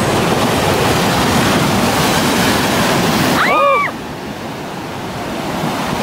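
Ocean surf surging and breaking against a rock ledge: a loud, steady rush of foaming water that eases about four seconds in, then builds again as the next wave washes over the rock.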